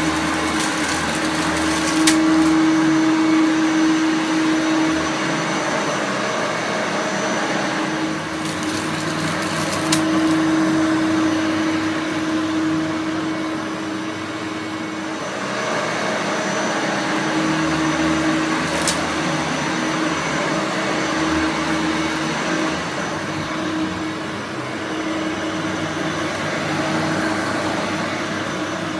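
Hoover Turbomaster U5078 upright vacuum cleaner running steadily, a motor hum over a wide rushing airflow. A few brief sharp clicks come through it, once near the start, once about a third of the way in and once past the middle.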